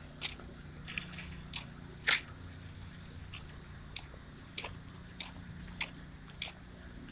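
Footsteps on paving at a walking pace, a sharp click about every 0.6 seconds, over a low steady hum.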